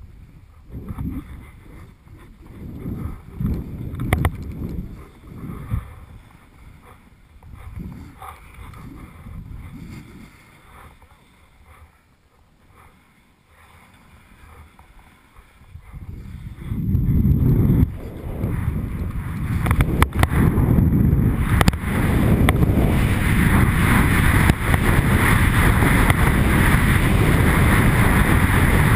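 Wind rushing over a ski helmet camera's microphone during a powder ski descent, mixed with the skis swishing through snow. It comes in uneven surges at first, dips for a few seconds, then becomes a steady loud rush a little past halfway.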